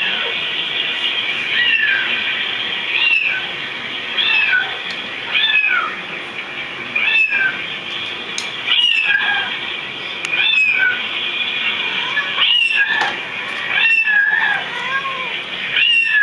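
Cats meowing repeatedly: about a dozen short, high meows, roughly one every second and a half.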